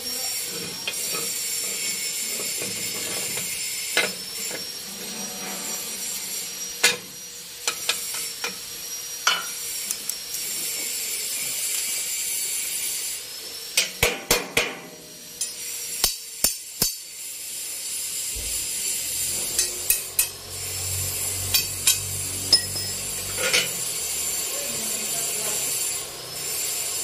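Sharp metal clanks and knocks from steel tools and parts being handled on a rusty brake drum, some single and some in quick clusters of three or four. A steady faint high whine runs underneath.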